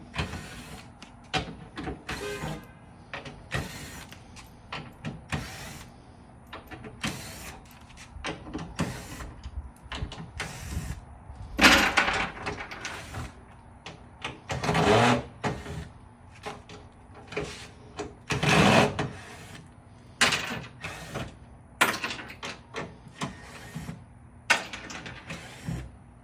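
Screws being taken out around the inner panel of a third-generation Toyota Tacoma's tailgate with a T30 Torx bit: a run of small clicks and knocks, with three louder, longer noisy scrapes in the middle.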